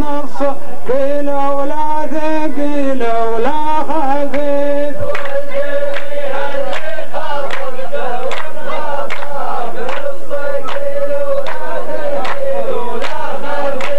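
Rows of men chanting a poet's verse in unison, as the chorus of a Saudi muhawara poetry duel, on long held notes. About five seconds in, sharp hand claps join at roughly two a second.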